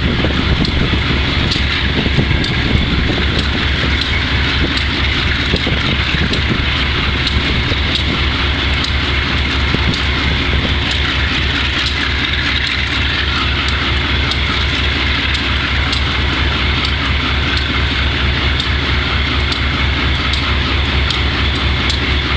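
GE B30-7 diesel locomotive's V12 engine running steadily, with an even, rapid pulsing exhaust beat. The locomotive is known to have bad fuel injectors.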